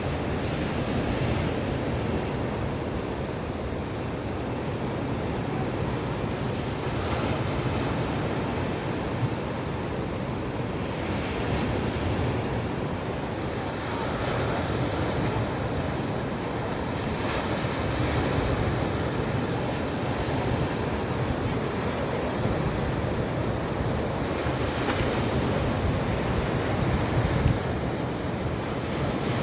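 Stormy sea surf, waves breaking and washing in with surges every few seconds over a steady rumble. Strong wind buffets the microphone.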